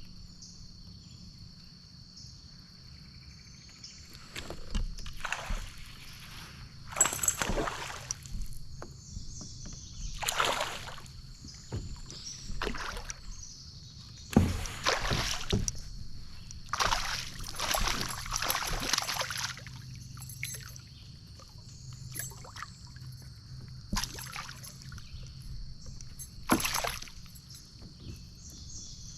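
Kayak paddle strokes in creek water: irregular swishes and splashes, a few seconds apart, some in quick runs. A steady high insect trill carries on underneath.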